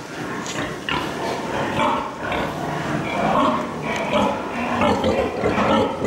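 Many pigs grunting and squealing at once, overlapping calls from a crowded piggery shed of sows and piglets.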